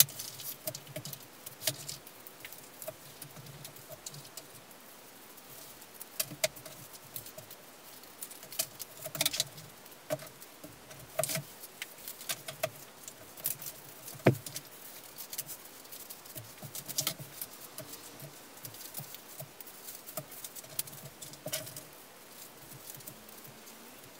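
Paper, cards and scrap pieces being handled, shuffled and laid down on a cutting mat: rapid, irregular light taps, clicks and rustles, with one sharper knock about fourteen seconds in.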